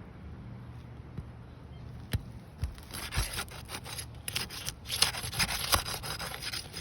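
Rough scraping and rubbing as a tool is worked under roof shingle tabs to break their sealant bond. It starts about halfway through as a rapid run of irregular scrapes.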